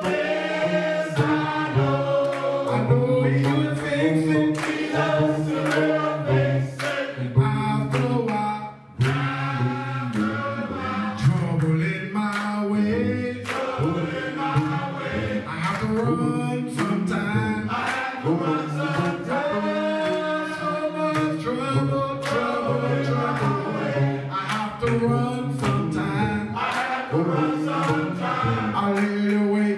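Men's choir singing a gospel song, the voices continuous with sharp beats throughout and a brief drop about nine seconds in.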